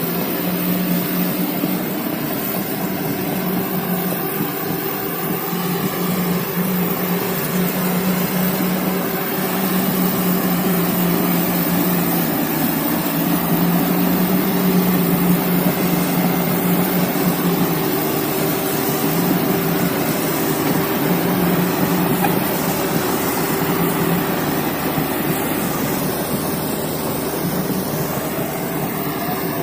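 Komatsu excavator's diesel engine running steadily under work, a continuous mechanical hum with a steady low drone and dense noise, no break throughout.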